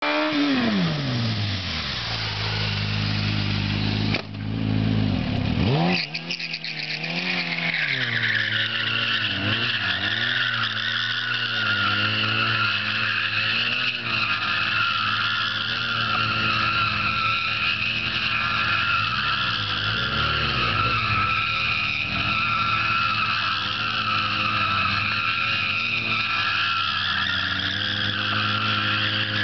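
Yamaha R1 (2005 RN12) sport bike's inline-four engine revving, its pitch falling and holding steady, with a break about four seconds in. From about eight seconds on, a long continuous tyre squeal runs over the engine held at high revs, rising and falling, as the spinning rear tyre burns rubber in a burnout or drifting slide.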